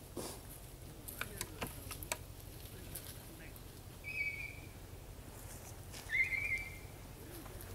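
Two short, high whistled bird calls about two seconds apart, the second sliding up before it levels off, over a few faint clicks.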